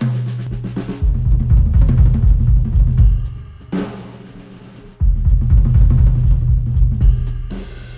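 Drum-heavy instrumental music with a deep bass line and a full drum kit, played back through studio headphones and picked up by microphones. The beat drops back for a moment around the middle, then comes in full again.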